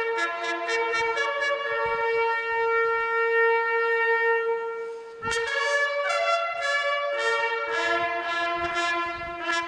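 Instrumental music with a brass-like melody of held notes. It fades briefly about five seconds in and picks up again with a new phrase.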